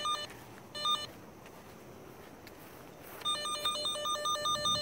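Handheld receiver of a Vevor underground cable locator beeping as it picks up the tracer signal: two short electronic chirps near the start, then about three seconds in a fast, steady run of beeps, roughly six or seven a second, begins.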